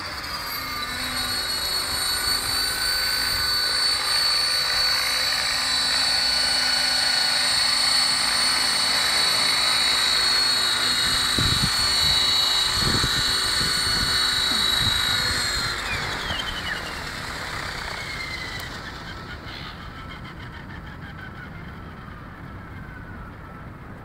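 Align T-Rex 500 electric RC helicopter's motor and rotor whine, holding a steady high pitch, then spooling down with falling pitch and fading after about sixteen seconds. Two dull thumps come near the middle.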